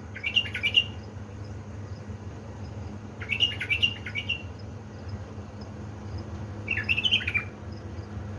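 Bulbul singing short phrases of quick notes, three times a few seconds apart, over a low steady hum.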